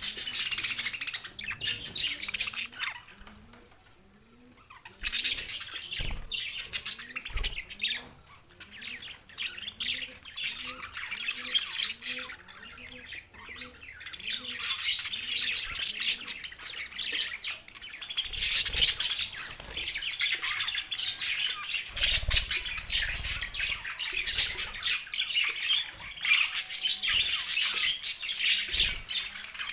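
Two male budgerigars chattering, a dense stream of rapid high chirps and squawks. There is a brief lull a few seconds in, and the chatter comes in louder bursts in the second half.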